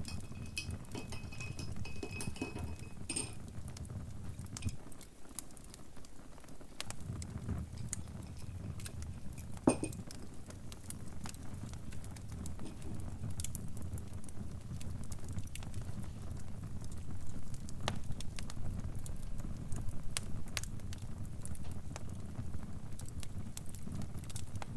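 Wood fire crackling: scattered sharp pops and snaps over a low, steady rumble, with one much louder pop about ten seconds in.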